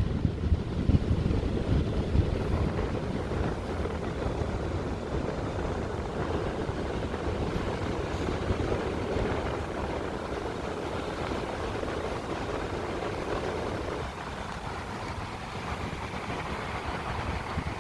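Wind buffeting the microphone over the steady rush of sea surf, easing a little about two-thirds of the way through.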